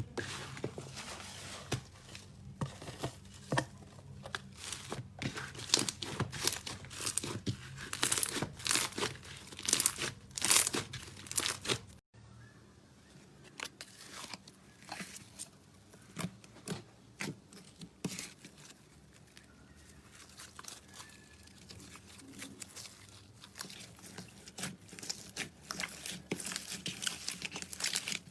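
Slime being pressed and squeezed by hand, giving dense crackling and popping. About twelve seconds in it cuts to a quieter stretch with sparser pops.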